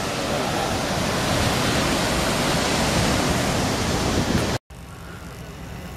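Steady loud rushing of water that cuts off suddenly about four and a half seconds in, leaving a much quieter outdoor background with a faint low hum.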